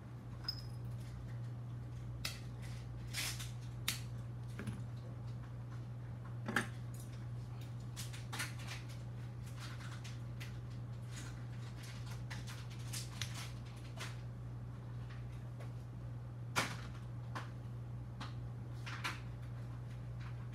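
Scattered small clicks and taps of hand tools and small electronic parts being handled on a silicone work mat during soldering, over a steady low hum.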